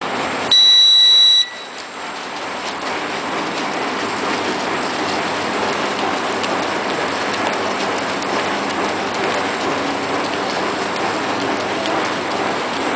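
RQL-800 heat-cutting bag-making machine running, a steady even mechanical noise from its drive and belt conveyor. About half a second in, a loud electronic beep sounds for about a second.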